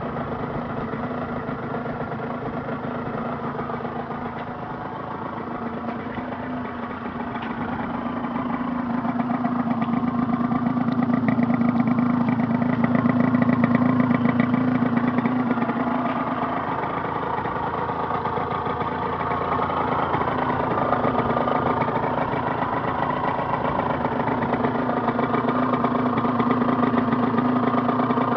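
Aprilia RS 50's single-cylinder two-stroke engine idling steadily. It grows louder for several seconds around the middle and again toward the end without a clear change in pitch.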